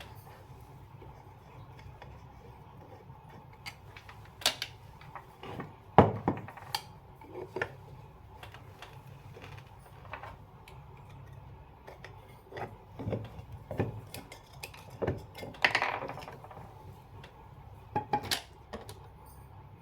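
Metal parts of a ceiling fan clinking and knocking as it is taken apart by hand with tools, in scattered irregular knocks, the loudest about six seconds in.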